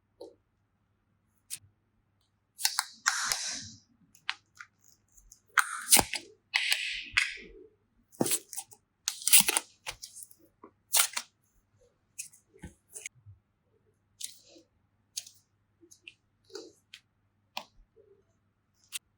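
Slime and clay being handled and opened from small plastic bags: irregular sharp clicks and crackles with several short crinkly bursts and a few soft squishes.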